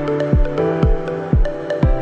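Electronic background music with a steady kick-drum beat about twice a second under sustained synth notes.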